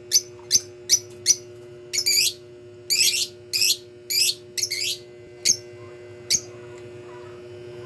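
Pet lovebirds calling: four sharp high chirps in quick succession, then a run of longer warbled calls, and two last single chirps about five and a half and six and a half seconds in.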